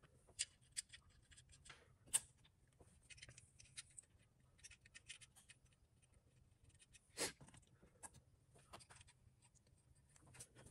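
Faint scattered clicks and light scraping of metal parts as nuts are started by hand on studs, with a sharper click about two seconds in and another about seven seconds in.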